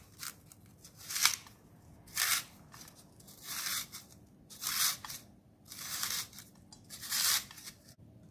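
A carrot twisted by hand through a handheld spiral vegetable cutter's thin-strand blade. It makes a crisp scraping cut with each turn, about six turns a little over a second apart.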